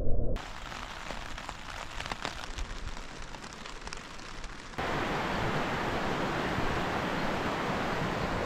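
A backpacking gas stove's burner roars for a moment at the start, then rain patters on a tarp shelter with scattered drop taps. About five seconds in this gives way to a louder, steady rush of wind and rain.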